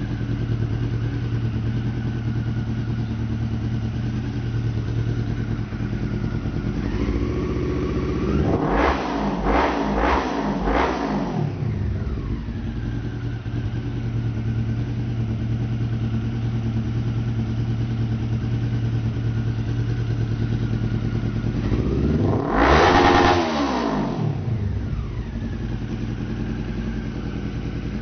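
Honda CB 500 parallel-twin engine breathing through a Coyote RS-5 aftermarket exhaust, idling steadily. It is blipped three times in quick succession about a third of the way in, and revved once more, higher and louder, a little past two-thirds of the way through, each time dropping straight back to idle.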